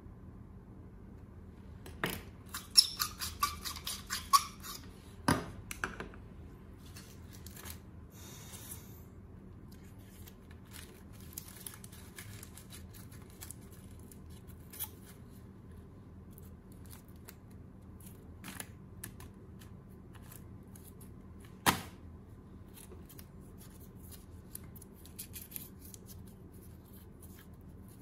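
Small hand-work sounds on a taken-apart LED bulb: a quick run of clicks and crackles a couple of seconds in, then sparse light ticks and crinkling as a small piece of metal foil is folded between the fingers, with one sharp click about three-quarters of the way through.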